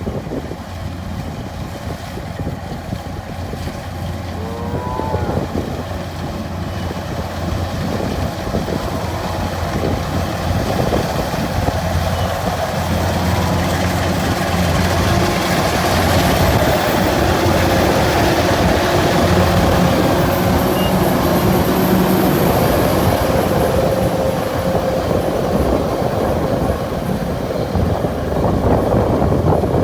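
Rice combine harvester running, its engine humming steadily under a rattling clatter of machinery, growing louder over the first half and then holding loud. A few short squeaks come about five seconds in.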